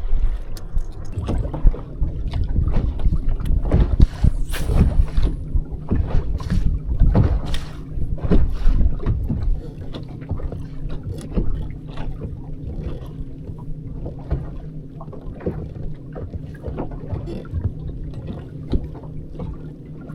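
Boat motor humming steadily on the water, with frequent short knocks and slaps over it, busiest in the first half and thinning out after about ten seconds.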